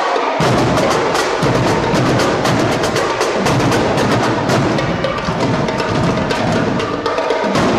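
Drum line playing a fast, loud cadence: rapid sharp stick strokes with deeper drum hits underneath coming in about half a second in.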